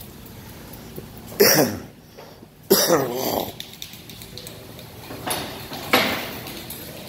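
A person coughing: two loud coughs about a second and a half and three seconds in, each starting suddenly and trailing off, then two shorter, softer bursts near the end.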